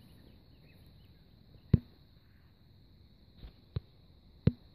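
Four sharp short knocks from handling, the loudest about two seconds in and another near the end, over a steady high insect buzz.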